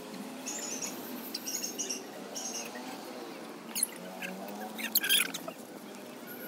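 Young children playing: faint children's voices, with short high chirps in the first half and a couple of sharp high clicks or squeals near the end.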